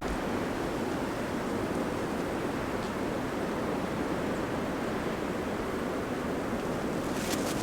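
Steady outdoor wind noise, even and unbroken, with a few short crackles about seven seconds in.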